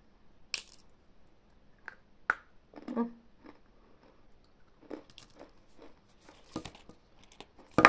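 A person biting and chewing a small dry cake, with scattered soft crunches, and a sharp knock near the end.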